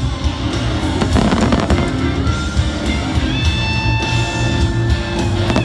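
Fireworks show soundtrack music playing loudly, with the pops and crackle of fireworks bursting over it.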